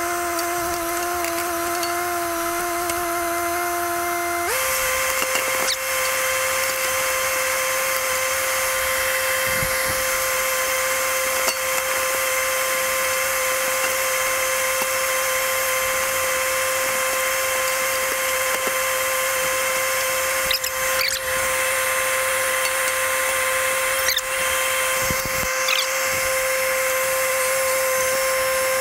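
Kubota compact tractor's diesel engine running hard while its backhoe digs at a stump. About four and a half seconds in, the engine pitch steps sharply up and holds there, as the throttle is raised for the hydraulics. A few short knocks come through later on.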